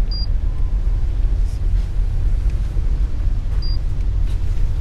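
Two short high beeps from a handheld paint thickness gauge, about three and a half seconds apart, each marking a coating reading. Under them is a steady low rumble.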